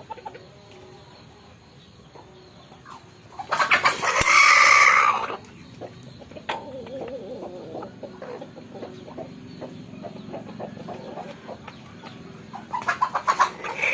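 Rooster crowing loudly once, a call of about two seconds that starts a few seconds in. Quieter clucking follows, and a burst of louder, rapid calls comes near the end.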